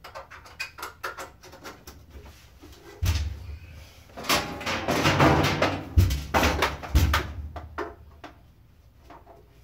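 Clicks, knocks and rattling of a network switch and its cables being handled and fitted into a wall-mounted panel, with a louder stretch of scraping and rustling and a few dull thumps in the middle.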